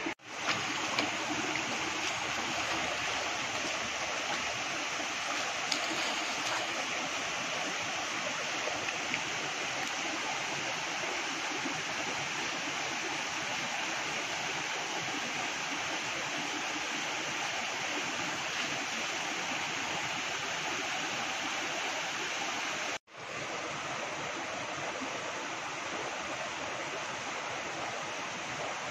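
Steady rushing of a shallow, rocky stream, an even water hiss with no speech. It cuts out briefly about 23 seconds in.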